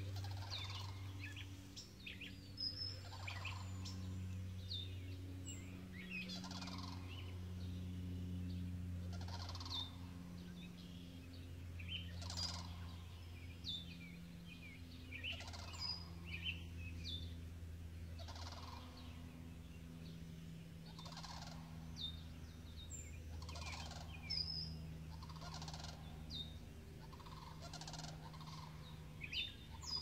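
Songbirds singing: one repeats a short song every two to three seconds, with quick high chirps from others in between. A steady low hum runs underneath.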